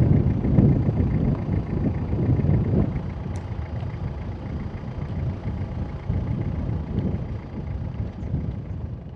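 Wind buffeting the microphone: a gusty low rumble that rises and falls, strongest in the first few seconds.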